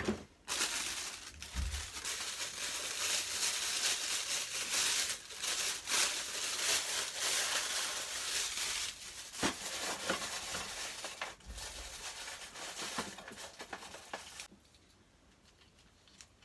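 Plastic packaging crinkling and rustling as it is handled and unwrapped by hand, with a few light knocks. It stops a couple of seconds before the end.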